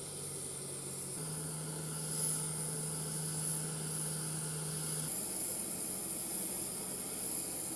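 Engines running on an airfield flight line during cargo loading: a steady machine hum with a high whine above it, the hum shifting pitch a couple of times.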